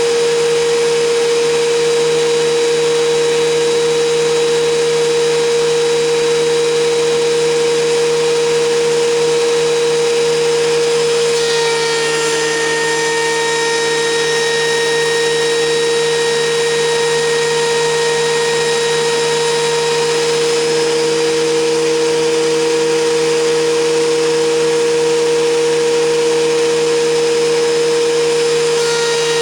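WEN 6552T 13-inch benchtop thickness planer running with a steady, loud motor whine; the mix of tones changes about twelve seconds in and again near the end.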